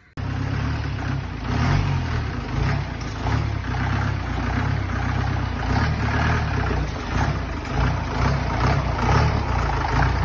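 Four-wheel-drive vehicle's engine running steadily as it drives, starting abruptly.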